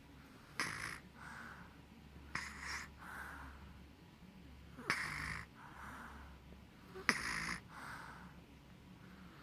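Snoring: four rough, loud snores about every two and a half seconds, each followed by a softer breath.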